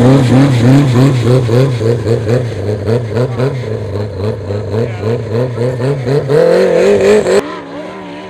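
Yamaha snowmobile engine revving hard close by, its pitch surging up and down about twice a second as the sled pulls away, then climbing to a steadier high rev. About seven seconds in it cuts abruptly to a much fainter, distant engine drone.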